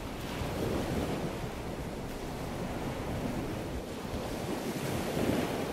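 Ocean surf: waves breaking and washing in, swelling louder about half a second in and again near the end.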